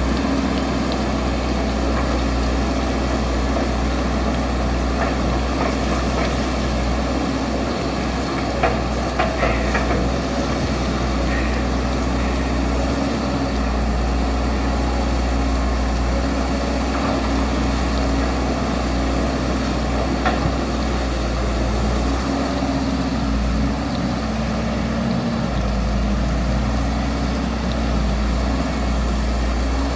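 Heavy diesel engine of an excavator running steadily while digging and loading sand into a truck, its pitch shifting a little with the load. There are a few short knocks about nine seconds in and again around twenty seconds in.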